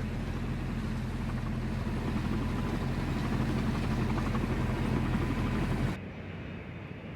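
A steady engine drone with a low hum under a rushing noise, cutting off abruptly about six seconds in.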